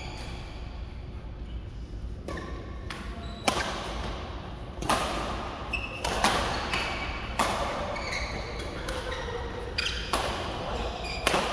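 Badminton rackets smacking a shuttlecock in a fast doubles rally, sharp hits about every second and a half starting about three seconds in, echoing in the large hall, with short squeaks of shoes on the court mat between hits.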